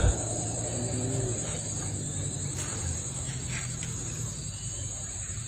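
Insects, likely crickets, chirping in a steady high trill over faint outdoor hiss.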